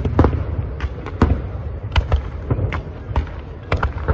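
Fireworks display: about ten sharp bangs of aerial shells bursting at uneven intervals, the first the loudest, over a continuous low rumble and crackle.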